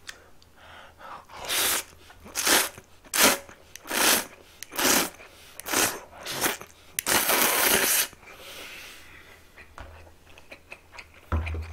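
A person slurping buckwheat noodles (makguksu): a string of short, loud slurps a little more than one a second, ending in one longer slurp, followed by quieter chewing.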